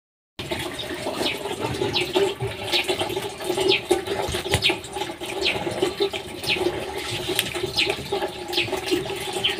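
Wood fire burning under a metal cooking pot on a mud stove, with a steady rushing, water-like noise. Short high falling chirps come through about once a second.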